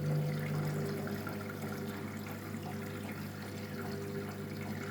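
Washing machine filling with water for the first rinse of a rinse cycle: water runs into the drum over a steady low hum.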